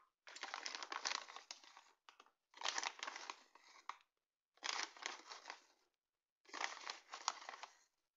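Thin plastic bag of powdered sugar crinkling as it is squeezed and shaken over a mixing bowl, in four bouts of crackling about two seconds apart.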